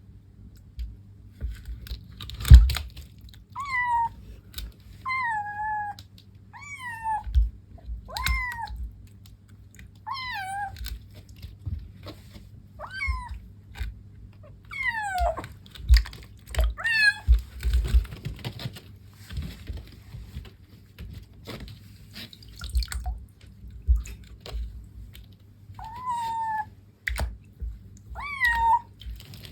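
Black kitten meowing repeatedly in protest at being bathed, about ten short calls that each fall in pitch, with a pause in the middle before two more near the end. Dull low knocks sound between the calls.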